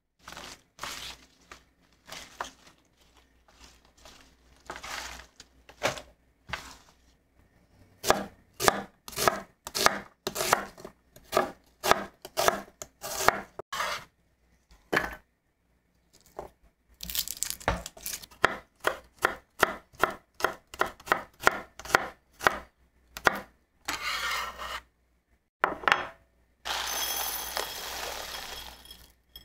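Chef's knife slicing collard greens and onion on an end-grain wooden cutting board: runs of sharp knife strikes, often about two a second, with pauses between. Near the end, dry farro grains poured from a bag into a ceramic bowl make a steady hiss for a couple of seconds.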